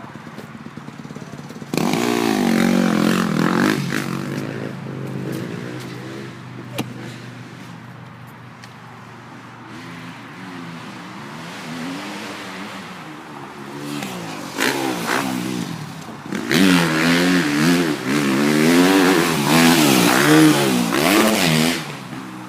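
Dirt bike engine revving up and down in repeated bursts: loud about two seconds in, quieter running through the middle, then a longer stretch of loud revving near the end.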